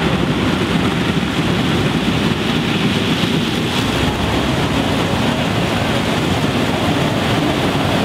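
Case IH 8230 Axial-Flow combine harvesting corn, with several tractors running alongside it: a loud, steady mix of engine and machinery noise.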